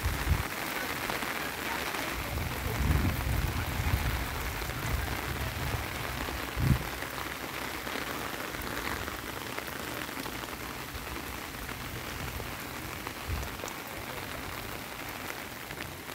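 Heavy rain falling in a steady hiss, with a few brief low rumbles now and then.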